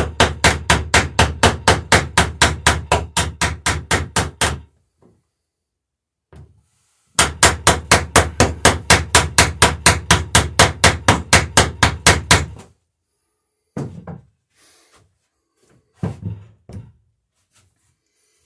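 Small hammer peening copper boat rivets over roves in wooden planking, with rapid, even light blows about five a second. Two runs of several seconds each are separated by a short pause, and a few scattered softer knocks follow near the end.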